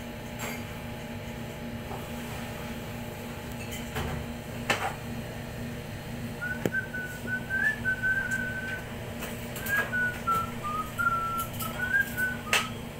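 A person whistling a wandering tune, starting about halfway through, over a steady low machine hum, with a couple of sharp clicks.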